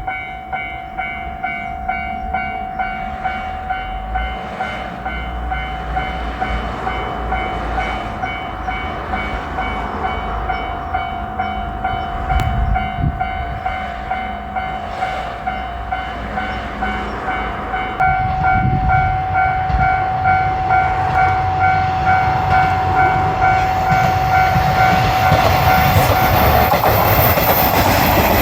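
Japanese railroad crossing's warning alarm ringing its steady, evenly repeating 'kan-kan' tone. About two-thirds of the way in, the low rumble of the approaching Seto Ohashi Anpanman Torokko train comes in and grows louder, reaching a loud rush of train noise near the end.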